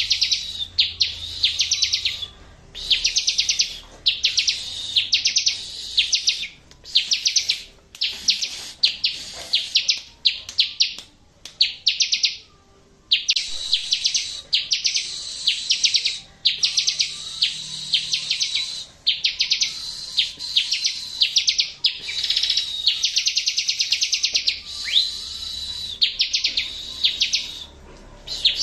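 Bar-winged prinia (ciblek) singing a training-recording song: fast trills of sharp, high chirps in bursts about a second long, one after another with short gaps and a brief pause midway.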